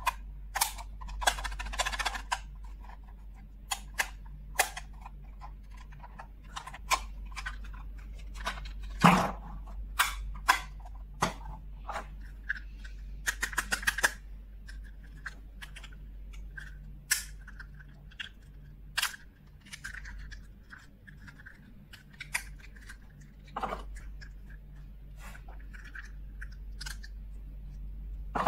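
Small plastic toy pieces clicking, tapping and snapping as they are handled and unpacked, in irregular sharp clicks with a few quick runs of taps and some light rustling in between.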